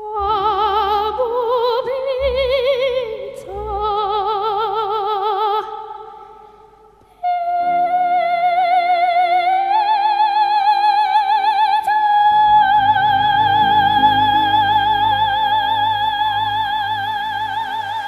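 Background music: a high operatic voice with wide vibrato sings slow, held notes over steady accompaniment. After a short break halfway, it settles into one long held note that steps up once.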